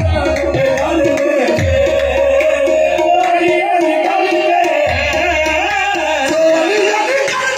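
Live qawwali: harmoniums and tabla keep up a steady rhythm under a group of voices singing together.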